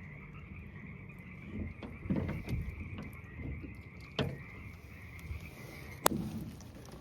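A chorus of frogs calling steadily in the background, a constant high-pitched trilling, while a few sharp knocks and bumps sound over it, the loudest a little before the end.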